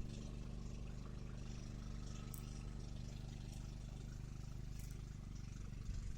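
Faint, steady engine hum with a low, even drone and no change in speed, cutting off abruptly at the end.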